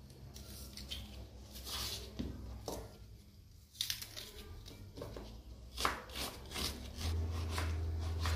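Layers of a fresh onion pulled apart by hand: short, crisp snapping and tearing sounds at irregular intervals. A steady low hum comes in near the end.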